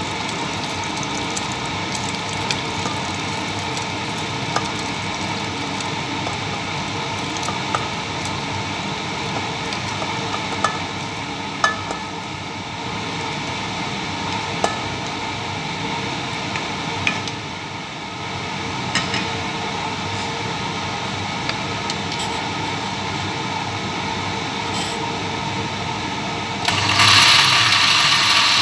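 Thick cooked sauce poured and scraped from a pan into a blender jar, with scattered sharp taps of spoon on pan and jar over a steady hiss. Near the end, a Princess countertop blender switches on and runs, louder than anything before it.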